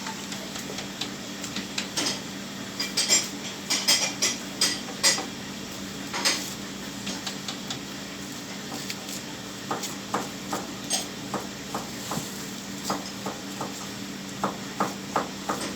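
Butcher's knife tapping, knocking and scraping against a cutting board while beef is cut apart, with a run of quick, even taps near the end. A steady low hum runs underneath.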